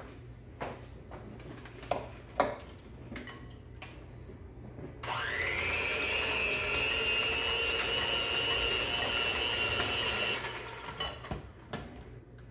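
Electric hand mixer beating a cream cheese and sour cream mixture in a glass bowl: the motor starts about five seconds in with a quick rising whine, runs steadily for about five seconds, then stops. Scattered knocks of handling the bowl and mixer come before and after.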